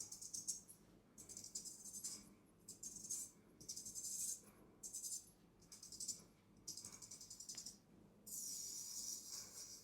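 Traditional straight razor working in short repeated strokes: about eight crisp, rasping metallic bursts, each under a second, with brief pauses between, the longest near the end.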